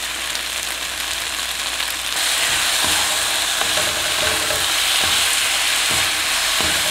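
Fish cakes, onion and green onion sizzling in a hot wok in a chili-flake and honey sauce while being stirred with a wooden spatula. The sizzle grows louder about two seconds in, with a few soft knocks and scrapes of the spatula against the pan.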